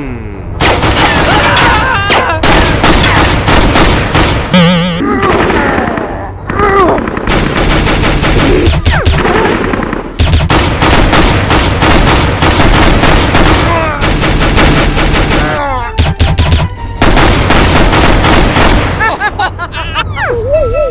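Rapid automatic gunfire in several long bursts of many shots, separated by short pauses.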